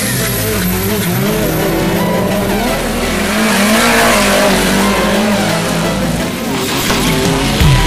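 Engines of small Suzuki 4x4s revving hard at full throttle on a drag launch, their pitch wavering up and down, with the tyres spinning and scrabbling on loose dirt.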